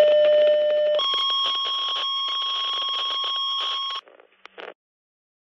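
Two-tone sequential fire dispatch paging tones over a radio: a lower tone for about a second, then a higher tone held for about three seconds over faint static. The tones cut off and are followed by a couple of brief radio crackles.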